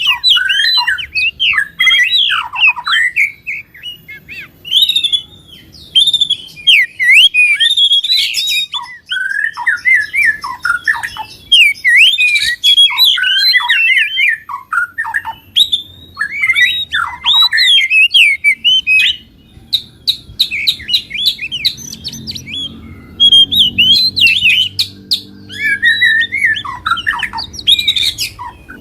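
Recorded songbird song: rapid, varied phrases of chattering and squawky notes coming in quick runs with brief pauses, a combined fighting-style song of several birds.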